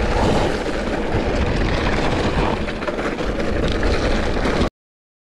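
Wind rushing over the microphone and tyre rumble of a mountain bike riding at top speed. The sound cuts off abruptly into silence near the end.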